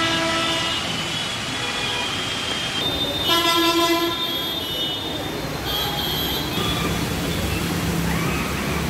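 City traffic on a waterlogged road: vehicle horns honking over the steady noise of engines and tyres running through water. One horn cuts off just under a second in, another sounds for about a second around the three-second mark, and fainter high horn tones follow.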